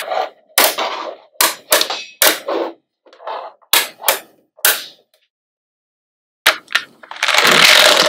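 Small magnetic balls clicking and clattering against each other in a string of sharp snaps and short rattling bursts, with a pause of over a second past the middle and a longer rattle near the end.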